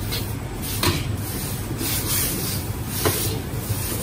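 Metal wok spatula scraping and tossing noodles and vegetables around a wok, with sharper scrapes about a second in and again about three seconds in, over a steady low rumble.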